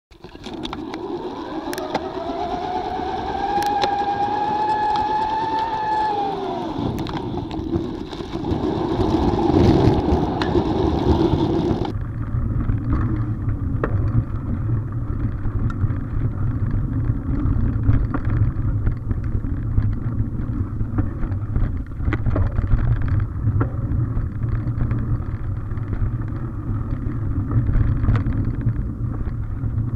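Mountain bike rolling along a dirt forest trail, heard from a camera mounted on the bike or rider: steady wind buffeting on the microphone and tyre rumble, with scattered small clicks and rattles. Over the first several seconds a humming tone rises and then drops away.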